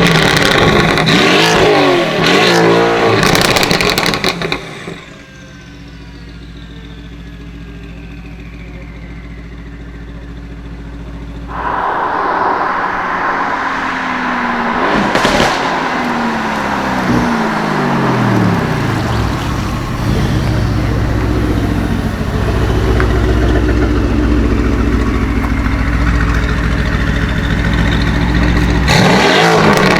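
Mercedes-AMG GT R's twin-turbo V8 through an Fi aftermarket exhaust: loud blips of the throttle with crackles, dropping to a quieter steady idle for several seconds. It then runs louder again with revs falling back in pitch, one sharp pop about fifteen seconds in, steady running, and more revving near the end.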